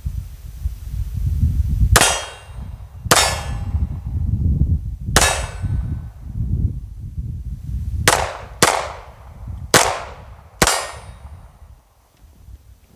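Two 9mm pistols, a Springfield XDM Elite and an FN 509 Tactical, fired in turn: seven sharp shots at uneven spacing, the last four coming in two quick pairs. A low wind rumble runs underneath.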